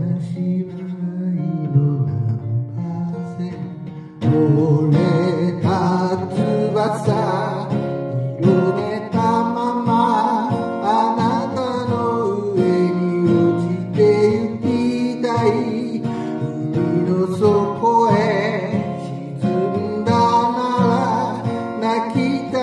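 A voice singing in Japanese, accompanied on a capoed acoustic guitar. The voice drops out briefly and comes back in louder about four seconds in.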